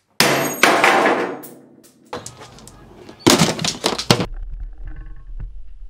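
A sudden loud crash that dies away over about a second and a half, then, a little over three seconds in, a sharp bang from a plastic wheelie-bin lid.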